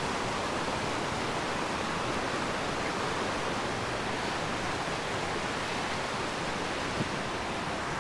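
Steady rush of the Gray Wolf River's flowing water.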